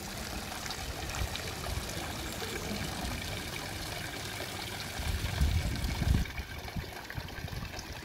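Water trickling steadily from the spouts of a bronze street fountain into its stone basin. A brief low rumble rises over it about five seconds in.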